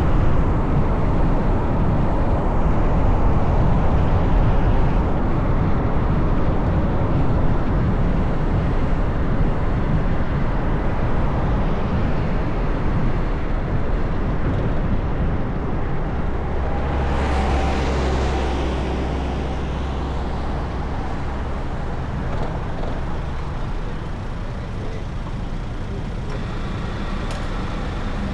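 Car driving: a steady rumble of road and engine noise. About two-thirds of the way through, a stronger low engine hum and a rush of hiss swell up for a few seconds and then fade.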